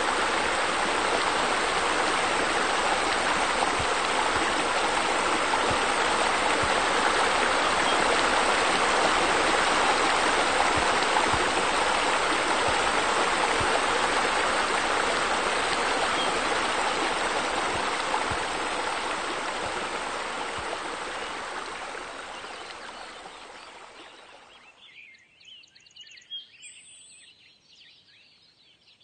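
Steady rushing, splashing water from pool water features such as sun-shelf bubblers, fading away over the last several seconds. Faint bird chirps come in near the end.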